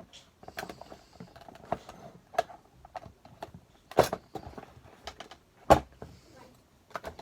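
Irregular clicks and knocks of small objects being handled, with two louder knocks about four seconds and about six seconds in.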